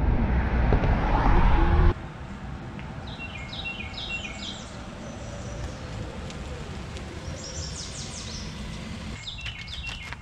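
A car is driving along a road with low road and engine rumble, which cuts off about two seconds in. A songbird then sings three times, each song a quick series of high, downward-sweeping chirps. Light clicks and knocks come near the end.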